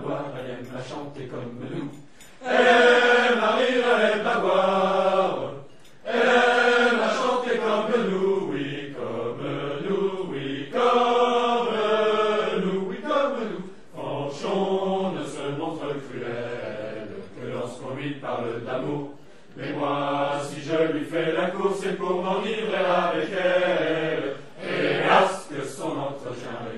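A chorus of voices singing a French song in long phrases separated by short breaths.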